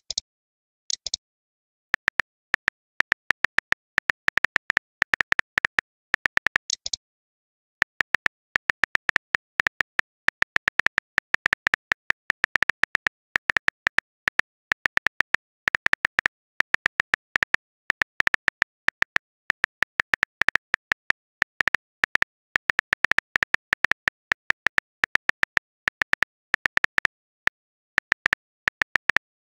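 Phone keyboard typing sound effect: rapid, irregular clicks, one per keystroke, running almost continuously from about two seconds in, with a few short high hissy sounds in the first seven seconds.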